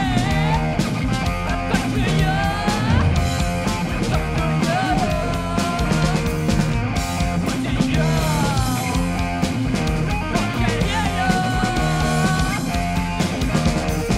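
A rock band playing live: electric guitar, bass guitar and a drum kit at full volume, with a singer's voice bending up and down over them.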